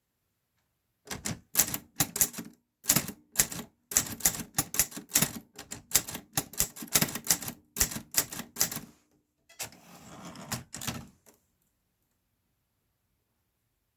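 Keys of a Clover New Star 10S Hangul typewriter striking in a quick, uneven run, starting about a second in. Around ten seconds in comes a short, softer rasping stretch with a few last strikes, and then the typing stops.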